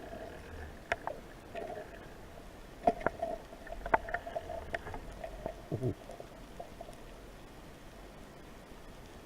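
Underwater sound through a camera housing: scattered sharp clicks and knocks over a faint on-and-off hum, with a brief falling tone about six seconds in.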